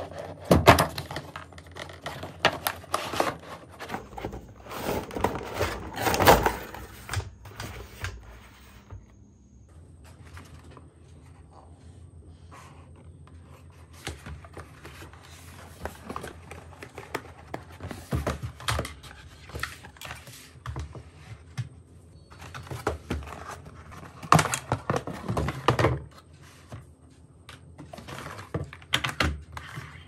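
Cardboard toy box and its packaging being handled and opened: irregular knocks, scrapes and rustles of cardboard and plastic as a toy RC car is unpacked. The handling is loudest in the first few seconds and again about three-quarters through.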